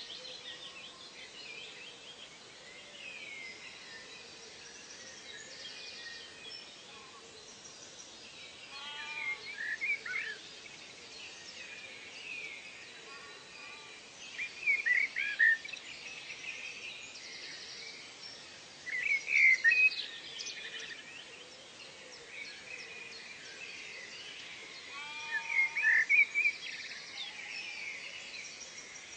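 Wild birds singing in four short bursts of quick rising and falling whistled notes, about five seconds apart, over a steady high background hiss of forest ambience.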